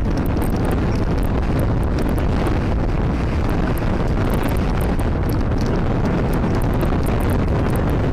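Wind buffeting the microphone on a boat's open deck: a loud, steady rumble with light crackling over it.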